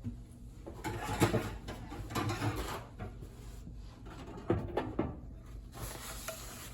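Paper towel wiping and rubbing against the inside of a microwave in irregular strokes, with a couple of sharp knocks about four and a half seconds in.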